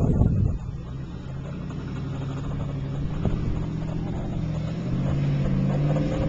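An engine running steadily, its pitch rising slowly over the last couple of seconds. Wind buffets the microphone for the first half second.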